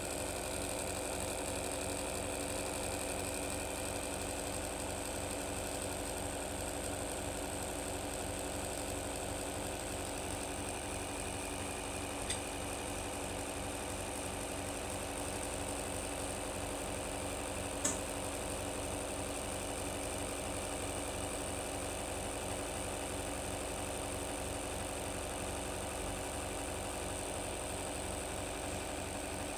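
Homemade axial-flux motor-generator with spinning magnet rotors running steadily under the load of charging a 12-volt battery: a constant mechanical hum made of several steady tones. Two faint ticks come about 12 and 18 seconds in.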